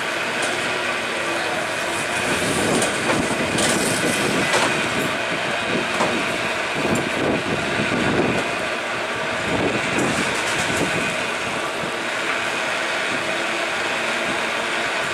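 A Powell & Hyde cable car rolling slowly past on its rails, with a steady clatter of wheels on the track and a few clanks between about three and eleven seconds in.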